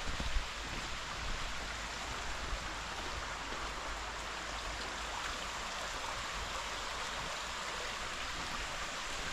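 Stream water flowing steadily, an even hiss, with a brief low bump right at the start.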